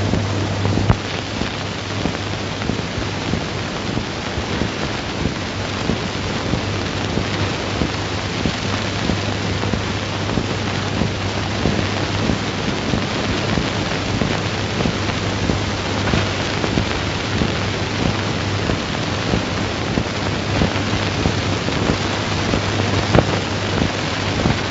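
Surface noise of an old optical film soundtrack: steady hiss and dense crackle with a low hum, and no speech or music.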